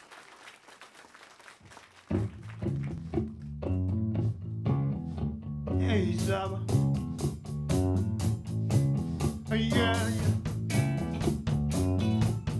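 A live R&B band coming back in after a quiet moment. Electric bass starts a repeating groove about two seconds in, the drum kit joins with cymbal strikes around six seconds in, and electric guitar lines play over it.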